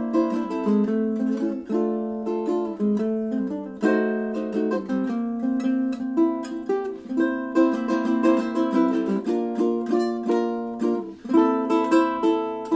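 A Moore Bettah ukulele played solo in quick, steady strokes, with a brief break in the playing about eleven seconds in.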